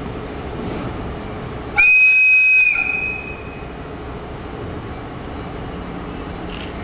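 A single high, steady whistle blast of just under a second, about two seconds in: the departure signal for a train. It sounds over the steady low rumble of a station platform.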